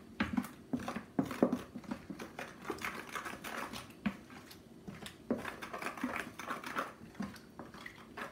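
Wooden spoon stirring flour into water in a clear mixing bowl, with many irregular knocks and clicks of the spoon against the bowl's sides and some scraping.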